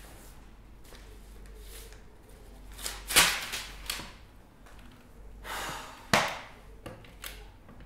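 A man sighing heavily twice, about three seconds in and again around six seconds.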